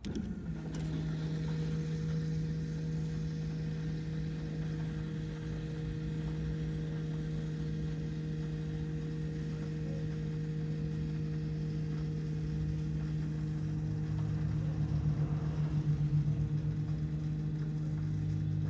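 Electric low-pressure fuel pump of a BMW X5 35d diesel, wired straight to battery positive, running with a steady hum to prime the fuel system and push air out after a fuel filter change. The hum swells and pulses briefly about fifteen seconds in.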